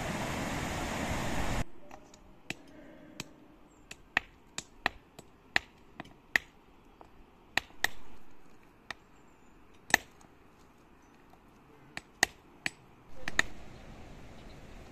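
A fast, swollen river rushing for the first couple of seconds, then sharp, irregular clinks of hand tools striking stone as rocks are broken into gravel by hand, roughly one strike a second.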